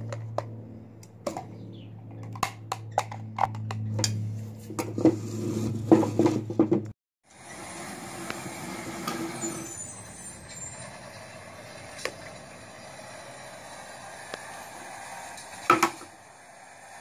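Steady, truck-like engine hum with many sharp plastic clicks and knocks from miniature wheelie bins and a toy grabber arm being handled. About seven seconds in the hum cuts off abruptly. A quieter, even hiss follows, with a few single knocks.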